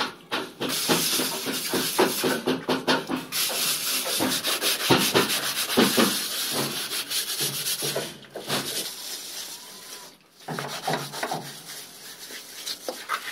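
Mason's trowel scraping and smoothing wet cement over a concrete countertop in repeated short strokes, with two brief breaks in the second half.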